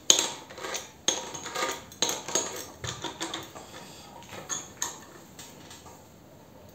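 Irregular metallic clinks and scrapes as a lathe chuck is tightened with a chuck key onto a rusty steel pipe, the sharpest in the first seconds and dying down near the end.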